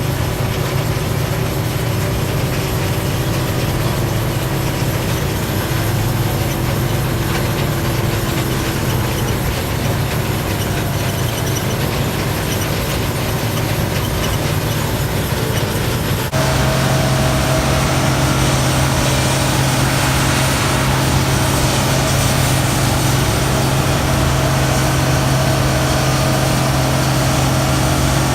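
Harvest machinery engine running steadily under load. About halfway through the sound switches abruptly to another steady engine drone, with a strong low hum and a higher whine.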